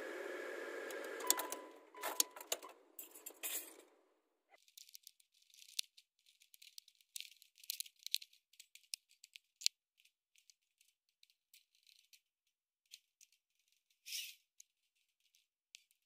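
Plastic steering-column trim being handled and fitted back, with many light clicks and rattles. A steady hum runs for the first four seconds or so, then stops.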